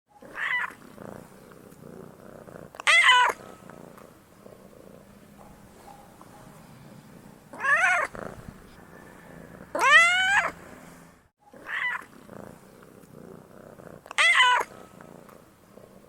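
Domestic cat meowing six times, short calls a few seconds apart, some sliding up and down in pitch and the one near ten seconds longest and loudest, over a quieter steady purr.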